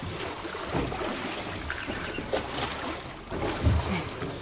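Wind on the microphone and water lapping against a small boat's hull, with a few scattered knocks, the loudest near the end.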